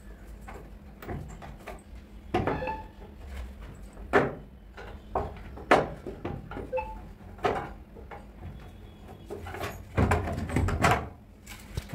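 Knocks and clunks of a loose plywood cupboard door being handled and worked off its hinges with a screwdriver: several sharp, irregular knocks, bunching together near the end.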